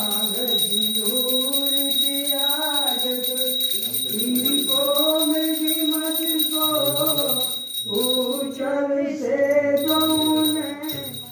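Devotional song: a voice sings long, held, wavering phrases, pausing briefly about four and eight seconds in, over a steady high-pitched tone that stops near the end.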